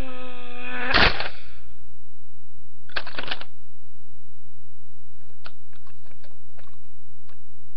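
Plastic LEGO bricks crashing down as a brick-built house is knocked over: a loud crash about a second in and a shorter clatter around three seconds. It is followed by a run of light clicks from loose bricks being handled.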